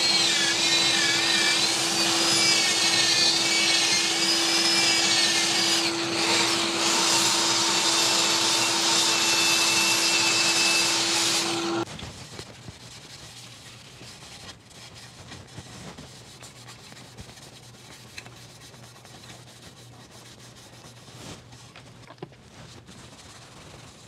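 An electric workshop machine runs with a steady hum and a wavering high whine, then switches off abruptly about twelve seconds in, leaving only faint room noise.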